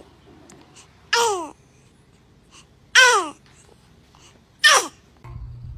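A baby sneezing three times, about a second and a half apart; each sneeze is short, with a falling pitch. A low steady hum comes in near the end.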